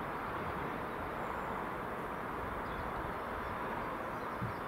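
Colas Rail Class 70 diesel locomotive approaching far off: a steady, distant rumble and hiss, with faint birds chirping.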